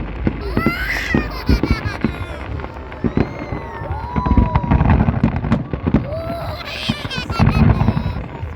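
Aerial fireworks going off in a rapid, irregular series of bangs and pops, clustering into denser volleys about halfway through and again near the end.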